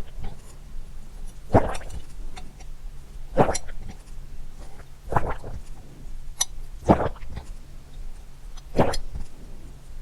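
Water being swallowed in gulps: five separate swallows, one about every 1.8 seconds.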